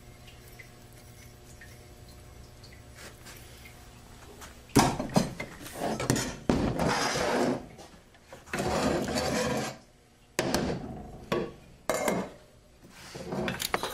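Metal clutch drums and hubs from a Ford 6R80 automatic transmission being handled: about five seconds in come irregular metal knocks, clicks and sliding rubs. Before that there is only a faint steady hum.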